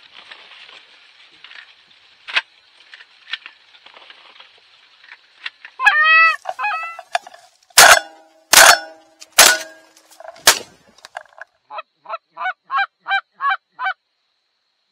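Geese honking as a flock comes in, then four shotgun shots about a second apart, followed by a quick run of evenly spaced honks near the end.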